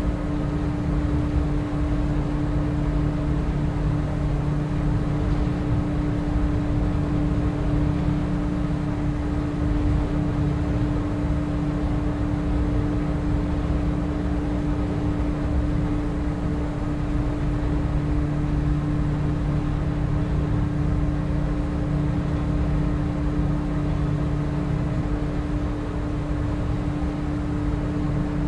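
Boat's outboard motor running at a steady speed with the boat under way, a constant drone with a steady hum over low rumble.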